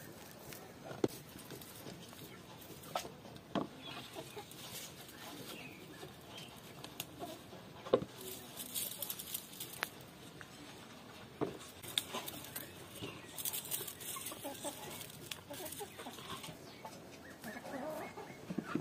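Chickens clucking, with scattered sharp knocks and leaf rustling as tomatoes are pulled off the plants and dropped into a plastic tub.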